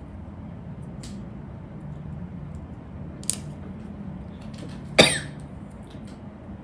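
Small plastic Lego pieces clicking now and then as they are handled and fitted, with one louder, sharp sound about five seconds in, over a steady low hum.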